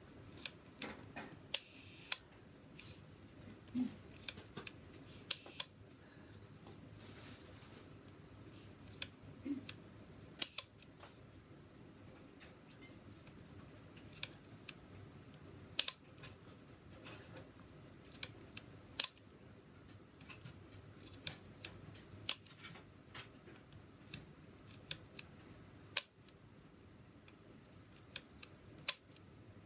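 Copal-SV leaf shutter of a Yashica-44 twin-lens reflex being cocked and released over and over: a series of sharp metallic clicks, some in quick pairs. About two seconds in, one release runs as a short buzz, like a slow shutter speed.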